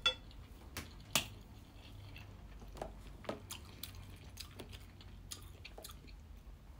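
A person chewing a mouthful of rice, egg and spam with faint wet mouth clicks and smacks. A wooden spoon and chopsticks laid on a ceramic plate give a sharp click right at the start, and there is another sharp click about a second in.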